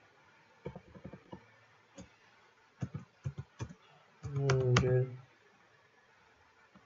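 Computer keyboard keys clicking in short bursts of typing. About four seconds in comes a brief hum of voice lasting about a second, the loudest sound, with a few more key clicks over it.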